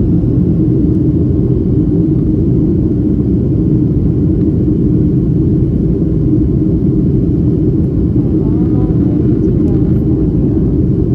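Airliner cabin noise in flight: a loud, steady, deep rumble of engines and rushing air that does not change.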